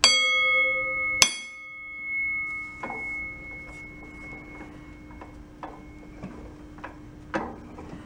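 A steel sprocket tack-welded to a hub, held in a lathe chuck, is struck twice about a second apart. Each strike rings out with a clear bell-like tone that fades over a few seconds. Light ticks follow as the chuck is turned by hand, over a steady low hum.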